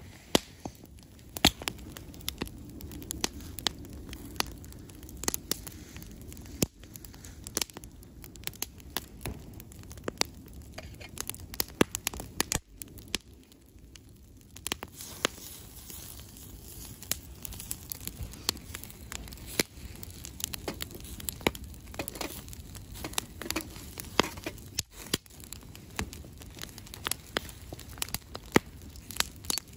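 Wood campfire crackling, with irregular sharp pops over a low, steady hiss of burning.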